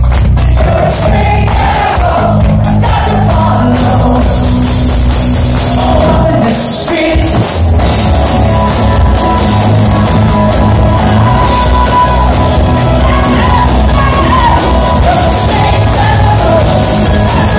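Live rock band playing loud: a man singing lead over electric guitar, bass and drums, heard from among the audience.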